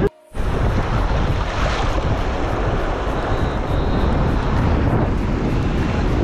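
Wind buffeting the microphone in a steady rumbling roar, with the wash of sea surf under it. The sound cuts out for a moment just after the start.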